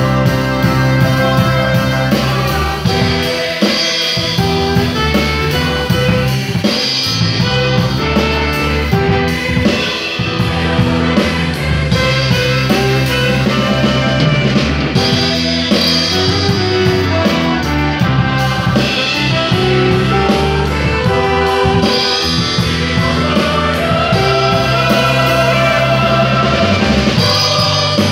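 Live band music driven by an acoustic drum kit: sticks playing the snare and toms with Paiste 502 cymbals, over steady sustained notes from other instruments.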